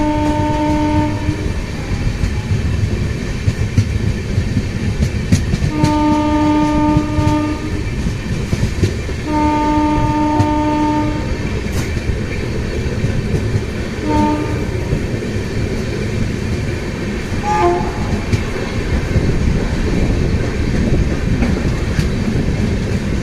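Grand Trunk Express train running at speed with a continuous wheel-on-rail rumble and clickety-clack over the rail joints. The locomotive's horn sounds several times over it: one blast ends about a second in, two long blasts follow a few seconds apart, and then a short toot.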